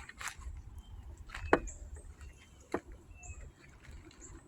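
Small birds chirping, with short high calls repeated throughout. Two sharp knocks stand out, the louder about one and a half seconds in and another near three seconds, over a low rumble.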